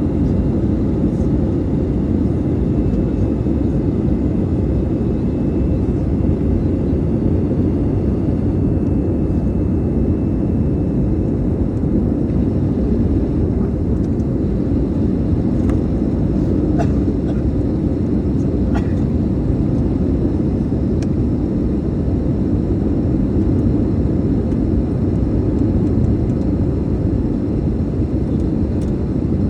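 Steady cabin roar of an airliner in flight during its descent, engines and rushing air, with a faint steady hum running through it. A few faint ticks come about halfway through.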